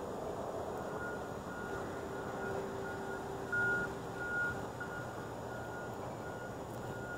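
A vehicle's reversing alarm beeping steadily, about two short beeps a second in one high tone, with two beeps louder near the middle, over a low engine hum.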